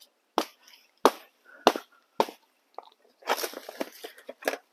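About five sharp knocks on a bucket lying on its side on concrete, with a scraping rustle between them. The bucket is being knocked about to loosen a yacon plant's root ball packed very tight inside it.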